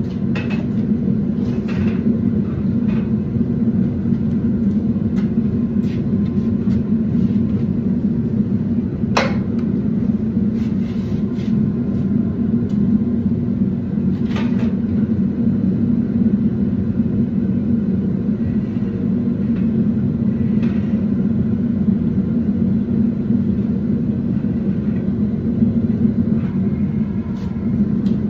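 Steady low drone of forging-shop equipment running, with a few light metal clanks, the sharpest about nine seconds in.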